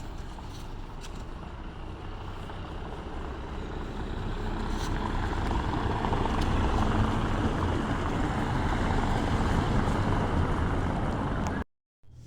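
Motor vehicle engine and road noise, a steady rumble that grows louder over a couple of seconds, holds, then cuts off suddenly near the end.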